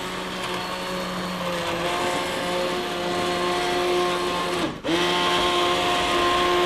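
Hand blender pureeing tomato and red pepper soup in a pot, its motor running with a steady whine. About five seconds in it winds down and stops for a moment, then starts again.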